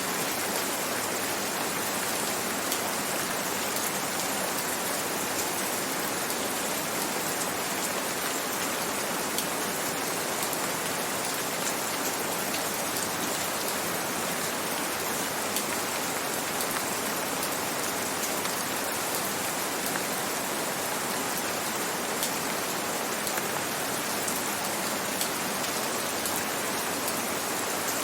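Steady rain falling, an even hiss with many small drop ticks and no rises or pauses.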